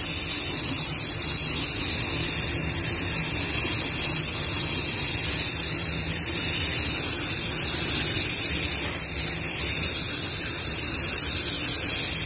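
Compressed-air paint spray gun hissing steadily while spraying clearcoat on a car panel.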